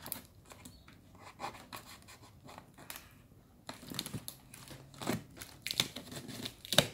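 Packing tape on a cardboard box being slit with a blade and pulled loose: irregular scratching, scraping and tearing, with a short quiet pause a little before halfway and the sharpest scrape near the end.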